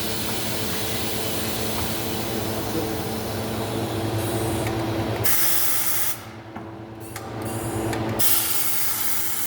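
Compressed air hissing from a tire changer machine as its pneumatic controls are worked, over a steady mechanical hum. The hiss surges louder about five seconds in, breaks off about a second later, and comes back near the end.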